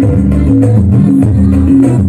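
Music with a heavy bass line stepping between notes, plucked strings on top and light percussion ticks.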